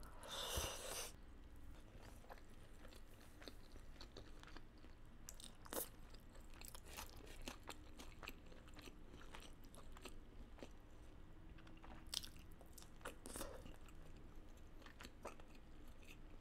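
Quiet chewing of a handful of rice and curry eaten by hand, with faint wet mouth clicks and smacks scattered throughout. A brief louder wet noise about half a second in as the handful goes into the mouth.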